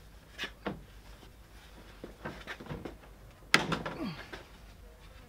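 Plastic radiator grille of an Isuzu D-Max being worked loose by hand: a series of clicks and short creaks as the plastic flexes and its locating lugs unclip, with the loudest sharp snap about three and a half seconds in.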